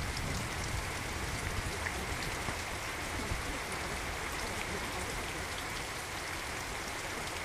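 Steady rain ambience: an even hiss with faint, scattered drop ticks.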